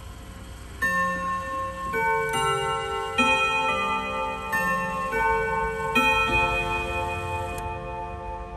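ODO 62/10 clock's chime: ten hammers striking tuned metal gong rods, playing a melody of about eight ringing notes that starts about a second in, each note sustaining and overlapping the next before the ringing fades.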